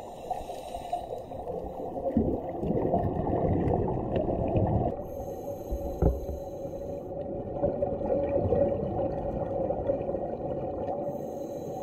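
Muffled underwater rumble picked up by a camera in a waterproof housing, a steady low hiss and hum of moving water. The noise shifts about five seconds in, and there is a single knock just after six seconds.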